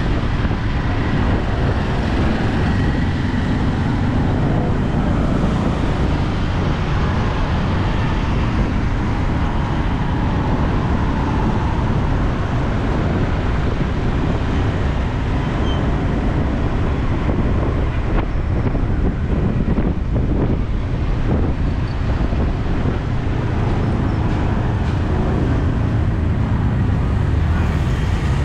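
Steady city street traffic, a mix of engines and tyres, heard from a moving bike with wind buffeting the microphone.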